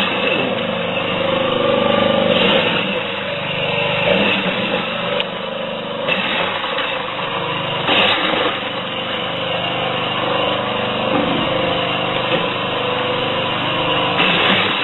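Motorised corn sheller running steadily, a continuous mechanical drone with brief louder surges every few seconds.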